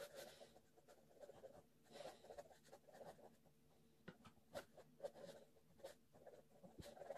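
Ballpoint pen scratching on paper in short, irregular strokes, with occasional sharp ticks as the tip lands. The sound is faint.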